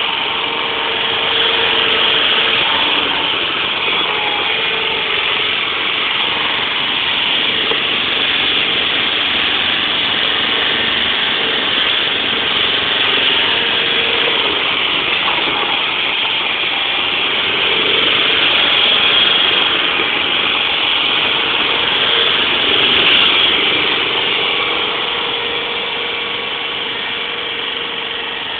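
Rough-terrain forklift's engine running steadily as it manoeuvres and sets a pallet down, its pitch wavering a little with the throttle.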